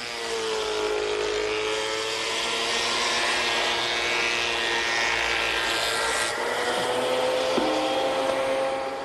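A thickness planer runs while planing reclaimed pallet boards: a steady motor whine under a wide cutting noise. The pitch dips as the cut takes load and then rises again. The cutting noise thins about six seconds in, and the machine dies away at the end.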